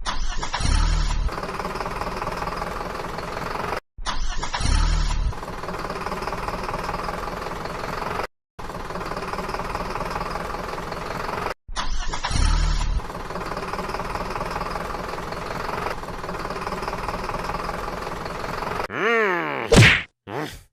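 Engine sound effect: a low rumbling start, then a steady run, looped three times with abrupt cuts. Near the end come a falling-pitch glide and a couple of sharp hits.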